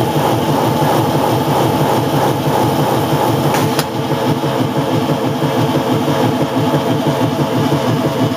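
Whizbang chicken plucker running empty: its chain-driven spinning plate of rubber plucker fingers whirs steadily at about 195 RPM, with water spraying into the tub. The plate is rubbing a little on the bottom plucker fingers. There is one brief tick about three and a half seconds in.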